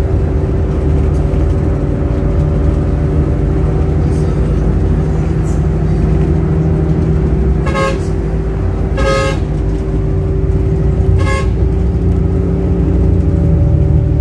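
Steady engine and road drone heard from inside a moving coach bus's cabin, with a vehicle horn tooting three times in the second half, the middle toot the longest.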